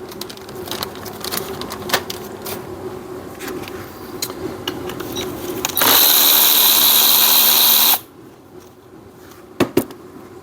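Small metal clicks and taps of parts and hand tools over a steady hum, then a power tool runs loudly for about two seconds and cuts off abruptly, followed by two sharp clicks near the end.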